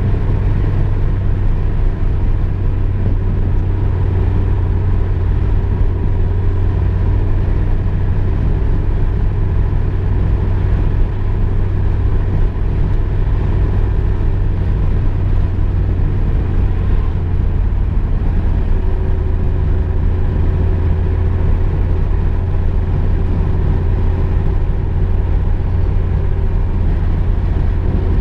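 Steady in-cabin drone of a VW Golf II under way, with engine and road rumble dominated by a deep, even hum. A faint higher hum comes in about two-thirds of the way through.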